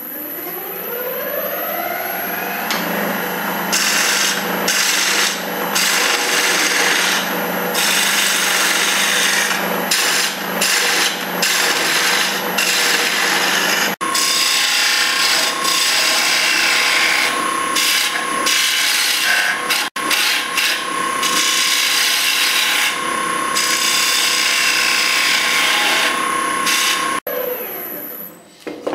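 Record Power wood lathe spinning up with a rising whine, then a turning chisel cutting into the spinning wood blank, the scraping cutting noise coming and going as the tool is worked in and out. The sound breaks off abruptly twice partway through, and once near the end.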